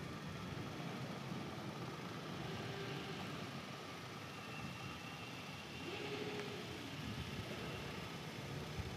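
Motorcycle riding heard through a helmet-mounted camera microphone: steady engine and road noise, with a couple of faint, brief rising-and-falling tones a few seconds apart.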